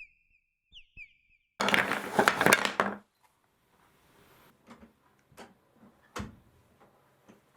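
Marbles running down a wooden marble run: a thin steady high tone at first, then a loud burst of rapid wooden clatter lasting over a second, followed by scattered clicks and knocks as marbles strike the wooden track.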